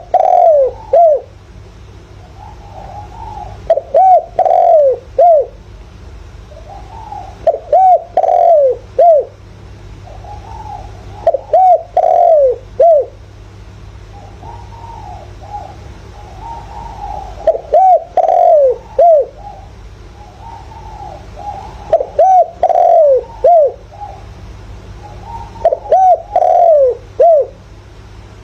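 Spotted dove cooing: a decoy bird's repeated phrases of several rising-and-falling coos, one about every four seconds, with fainter coos in between. Steady low hum underneath.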